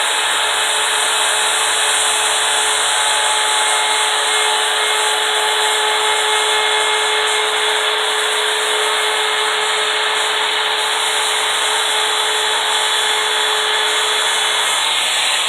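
Handheld router fitted with a small CNC carving bit through a collet reducer, running steadily and cutting into wood, with a constant motor whine.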